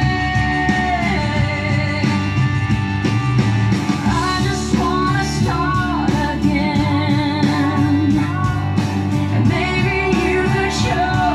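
A pop song with a singing voice over guitar, bass and drums, played back through a Sony TA-V10 integrated stereo amplifier and its loudspeakers.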